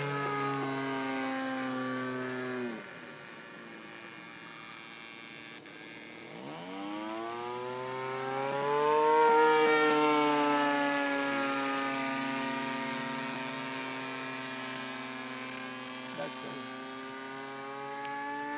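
PAW .19 model diesel engine of a radio-controlled model aeroplane in flight, running steadily. About 3 s in its note drops sharply in pitch and level and stays low and quieter, then rises again from about 6 s, is loudest around 9 s, and slowly sinks in pitch afterwards.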